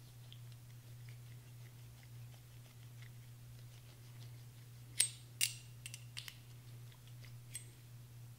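Faint scraping and small ticks of a CAT M-4 scraper tool worked against an AR-15 bolt to break loose carbon buildup. A few sharp metal clicks come about five to six seconds in, with one more near the end.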